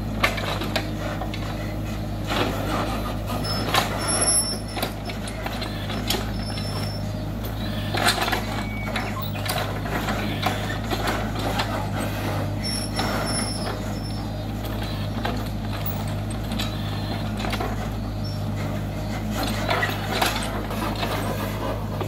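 Mini excavator's diesel engine running steadily while its grab drops and shifts debris into a dump truck's steel bed, with scattered clanks and crashes.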